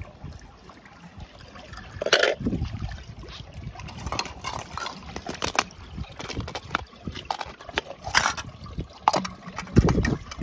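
Water sloshing and splashing, broken by many small irregular splashes and knocks as small toy cars are moved through it and dropped into it, with louder splashes about two seconds in and again near the end.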